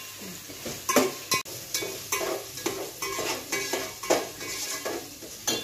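A metal spoon stirring and scraping the bottom of an aluminium cooking pot, in repeated strokes about three a second, while onion, whole spices and ginger-garlic paste sizzle in the oil.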